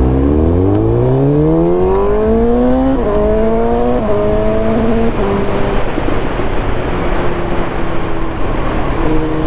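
Suzuki GSX-S750 inline-four with a decat exhaust accelerating, its note rising for about three seconds. Then come three quickshifter upshifts about a second apart, each dropping the pitch, before it settles to a steady cruise. Wind noise on the microphone throughout.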